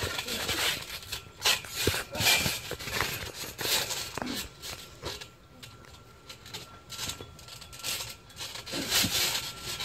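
Feet and bodies scuffing and landing on a trampoline mat during a wrestling scuffle: irregular rubbing swishes with a few sharp thumps.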